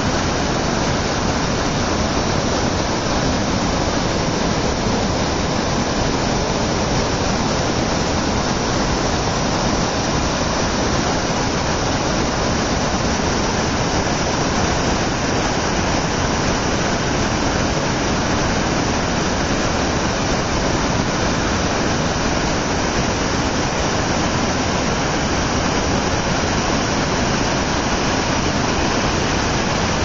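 Water pouring over a low river dam in a wide curtain, a steady, unbroken rushing.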